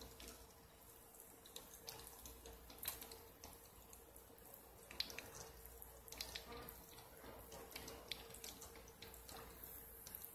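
Breaded flounder fillets frying in hot oil: a faint sizzle with scattered small pops and crackles, over a faint steady hum.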